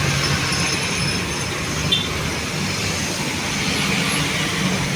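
Elevated LRT Line 2 train passing, a steady rumble with a faint high whine over the noise of street traffic.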